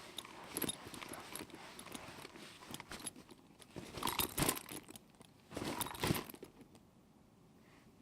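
Backpack and its contents rattling and jangling to jogging steps: quick small clicks at first, then two louder shakes about four and six seconds in, after which it goes almost still.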